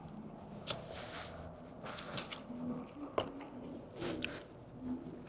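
Close-up eating sounds: a person chewing and biting into a fried chicken wing, with wet smacks and a few sharp clicks, the sharpest about three seconds in.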